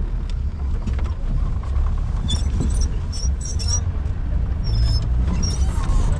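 Safari vehicle running, a steady low engine rumble, with short high chirps twice in the middle.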